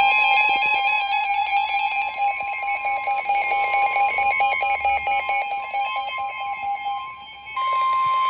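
Electronic emergency alert tones. A steady high tone sounds under a fast, alternating warbling tone for about seven seconds. Near the end, after a brief dip, the steady tone plays alone and louder for about a second.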